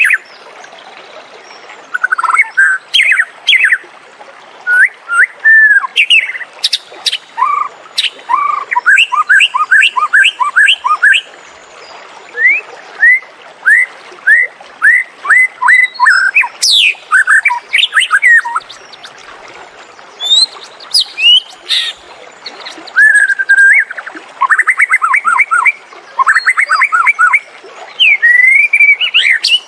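White-rumped shama singing: a varied run of loud, clear whistled phrases and glides, with fast series of repeated notes about ten seconds in and again near the end, and a short lull about two-thirds through.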